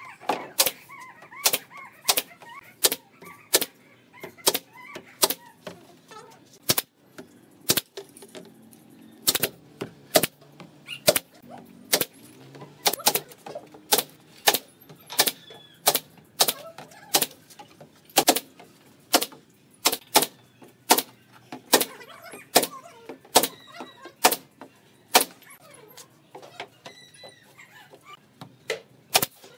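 Pneumatic stapler firing staples through a thin sheet into a wooden frame, one sharp clack after another, about one or two shots a second.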